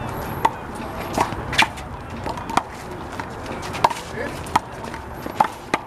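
Rubber handball struck by open hands and smacking off the wall and court during a rally: a string of sharp smacks, roughly one every half second to a second.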